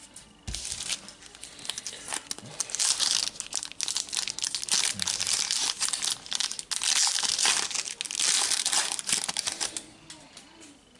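Panini Adrenalyn XL trading-card packet being torn open and crinkled by hand: a dense crackling rustle that starts about half a second in and dies down about a second before the end.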